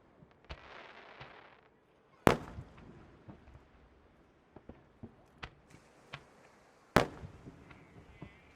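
Aerial fireworks shells bursting: two loud booms that ring out, about two seconds and seven seconds in, with scattered smaller pops and a second-long crackling hiss about half a second in.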